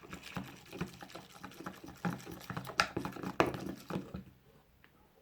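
Sticky slime mixture being worked, a quick run of small wet clicks and squelches that dies away near the end.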